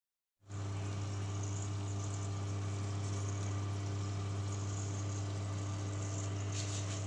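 Steady electric hum of a running kitchen appliance: a low drone with a faint hiss above it, cutting in abruptly about half a second in and holding steady.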